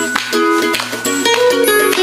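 Background music: a light tune of short plucked notes.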